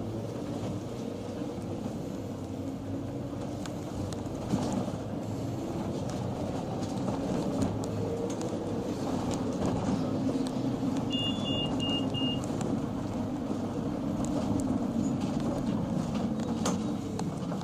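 Mercedes Sprinter minibus heard from inside while driving: steady engine and road rumble that grows louder partway through. About two-thirds of the way in, four short high beeps sound in quick succession.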